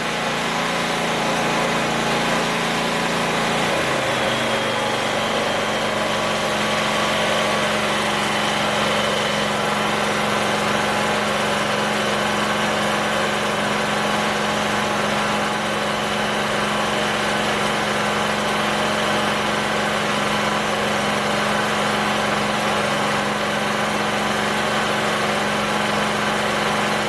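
Portable gasoline generator running steadily, reading about 80 dB on a sound meter. Its engine note shifts about four seconds in, then holds steady.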